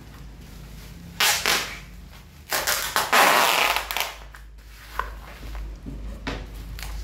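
Brown packing tape being pulled off its roll and stuck around a plastic-wrapped parcel: a short loud rip about a second in, then a longer one from about two and a half seconds, followed by softer handling noises and a click.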